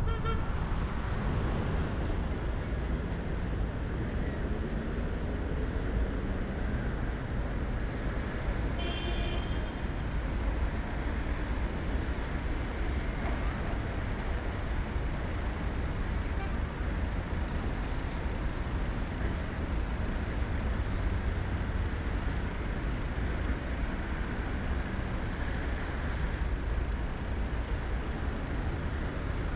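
Steady road noise from a car driving through city traffic: a constant low rumble of engine and tyres. About nine seconds in, a brief high-pitched sound stands out above it.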